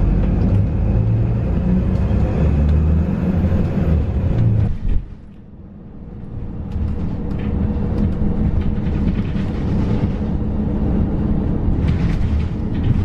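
Bus engine and road noise, a heavy low rumble; it drops away abruptly about five seconds in, then builds back up.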